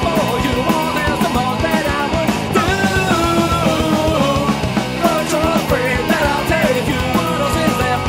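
Loud pop-punk band recording playing without a break: a dense mix of band instruments over a fast, steady beat.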